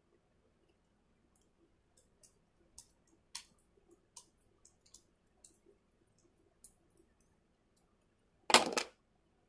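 Hands and metal hair clips working starter locs: faint, scattered clicks and ticks, then a short, loud rubbing burst near the end.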